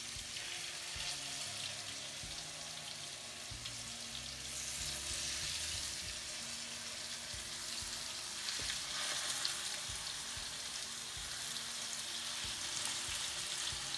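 Salmon fish cakes frying in olive oil and butter in a pan, a steady sizzle that gets louder about four and a half seconds in.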